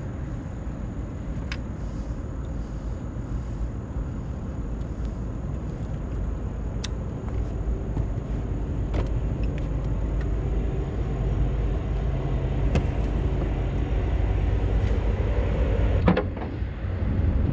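A steady low motor-like rumble with a faint hum, slowly growing louder, with a few sharp clicks scattered through and a brief drop in level near the end.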